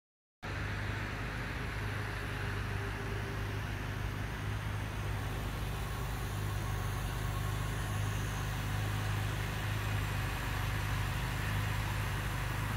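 1988 Volvo 240 GL sedan's engine idling with a steady low hum. It comes in abruptly about half a second in and then holds even.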